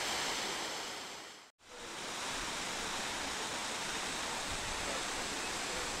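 Steady rushing splash of a fountain's water sprays. It fades out to a moment of silence about a second and a half in, then comes back at the same level.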